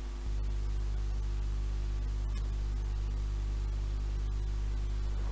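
Steady low mains hum with faint hiss from a 7-inch reel-to-reel tape recording's lead-in, the hum getting a little louder about a quarter second in, with a few faint clicks.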